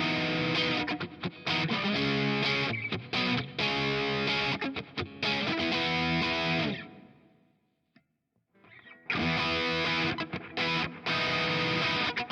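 Vintage V6H Icon HSS electric guitar played through a distorted Kemper amp profile: a choppy, stop-start chord riff that rings out and fades to near silence about 7 s in, then starts again about two seconds later.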